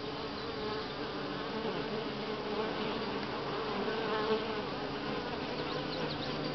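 Honey bees buzzing at a hive entrance: a steady drone of many overlapping wingbeat tones.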